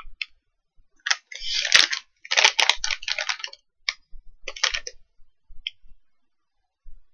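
Plastic candy wrapper crinkling as it is handled and opened, in several bursts: the longest from about one to three seconds in, then a few shorter crackles.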